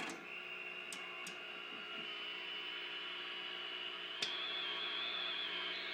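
A 1946 RCA 621TS tube television's sound putting out a steady high whistle over hiss instead of its 1 kHz test tone: the audio circuit is oscillating. The whistle creeps slightly higher, then jumps up in pitch with a click about four seconds in.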